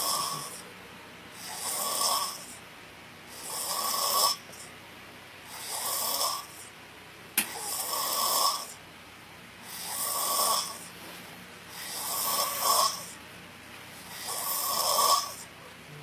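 A drunk man snoring through his open mouth in deep sleep, a rasping snore on each in-breath about every two seconds, each one swelling and then cutting off. One sharp click about halfway through.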